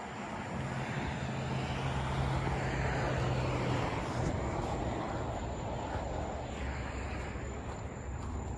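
Heavy diesel engines of an articulated dump truck and an excavator running, a steady low drone with a hum that swells a couple of seconds in and eases slightly later.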